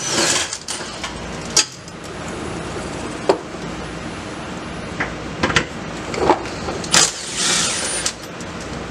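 Scattered metal tool clicks and knocks while the exhaust hangers are worked loose under the car, over a steady background noise, with a short hiss about three-quarters of the way through.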